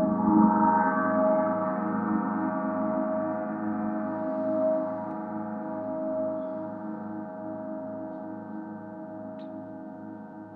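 Mercury planetary gong struck near the start, then ringing with many sustained overlapping tones that slowly fade. Under them, a low hum pulses about twice a second.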